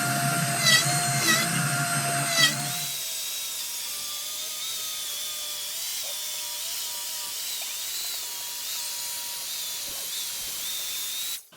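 A handheld power tool running with a high whine. About three seconds in the low rumble drops away and the whine becomes quieter and wavering, then it cuts off suddenly near the end.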